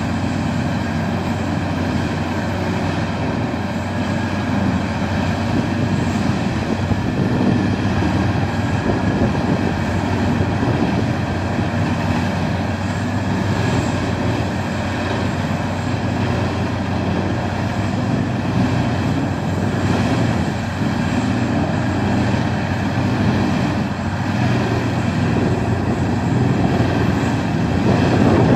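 Peterson 4300B horizontal drum wood chipper running: a loud, steady machine drone with a rough, continuous noise over it.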